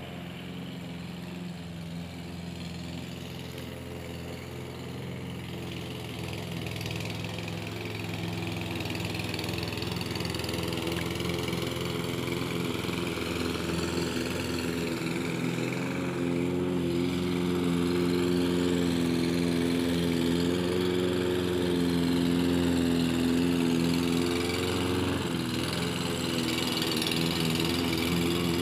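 Makita walk-behind lawn mower's Briggs & Stratton 675 series 163cc single-cylinder four-stroke engine running steadily while cutting grass, growing gradually louder as the mower comes closer.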